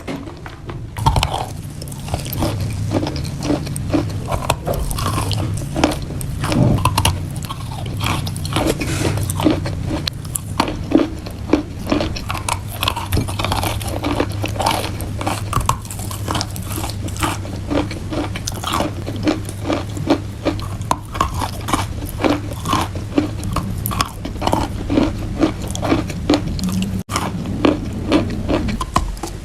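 A person biting and chewing wetted chalk: a dense, irregular stream of moist crunches, several a second.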